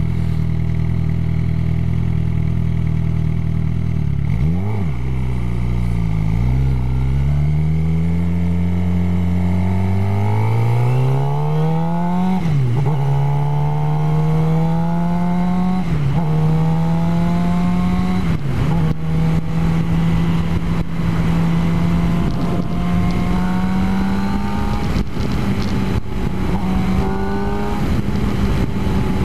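Suzuki GSX-R 750's inline-four engine idling, with a quick blip of the throttle about four seconds in. It then pulls away, the revs climbing and dropping back three times as it shifts up through the gears, and settles into a steady cruise for the last ten seconds with wind buffeting the microphone.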